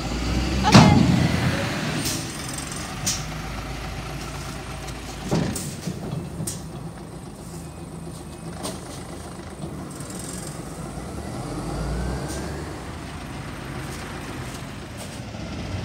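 Rubbish truck's engine running steadily, with a loud rushing air hiss about a second in, typical of an air brake, and a few sharp knocks a few seconds later. The low rumble swells briefly near the end.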